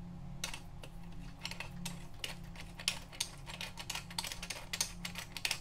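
Irregular light metal clicks and taps from handling a square-taper crank arm just pulled off with a crank puller, over a faint steady low hum.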